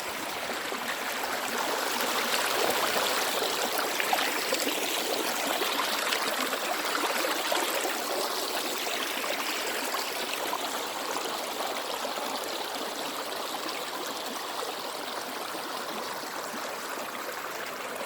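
A small river's water rushing, a steady flow sound that grows a little louder about two seconds in and eases after about eight seconds.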